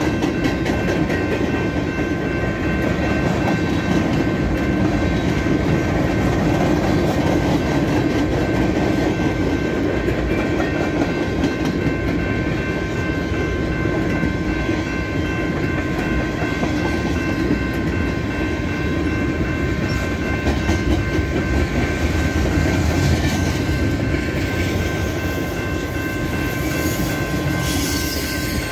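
Freight cars of a long manifest train rolling steadily past, first empty centerbeam flatcars and then autoracks. Steel wheels click over the rail joints under a constant rumble, with thin steady high-pitched tones above it.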